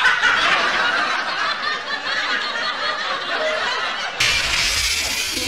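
Laughter: chuckling and snickering.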